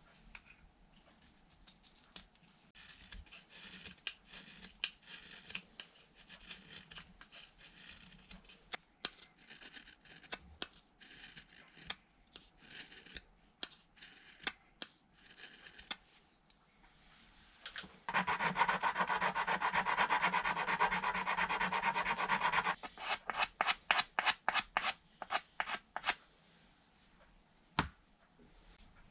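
A small Japanese carving knife (kogatana) shaves a wooden dowel's end in many short scraping cuts. About 18 s in, a louder stretch of continuous rubbing follows, then quick rubbing strokes, about five a second, that stop near the end.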